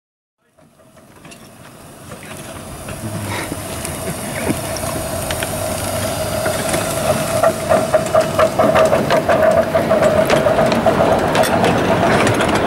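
Miniature steam locomotive hauling a train of passenger carriages, fading in and growing louder as it approaches and passes. A steady whining tone runs through the middle, and a quick series of clicks from the carriage wheels over the rail joints comes near the end.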